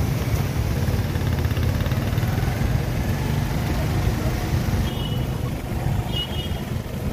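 Steady low rumble of street traffic, vehicle engines running.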